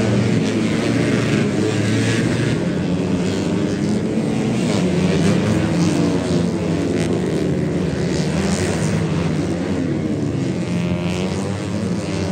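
Several small racing motorcycles running at high revs, their engine notes overlapping and rising and falling as they pass through the corners.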